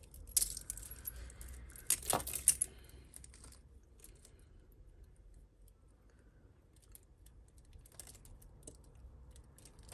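Costume jewellery being handled: glass beads and small metal pieces clicking and clattering together. The loudest clatter comes about two seconds in, followed by scattered light clicks.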